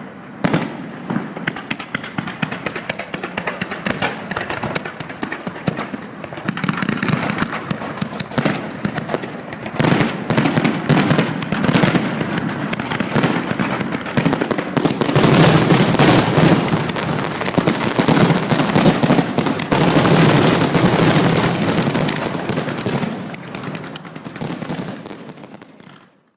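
Fireworks going off: rapid bangs and crackling that thicken into a near-continuous barrage about ten seconds in, then die away near the end.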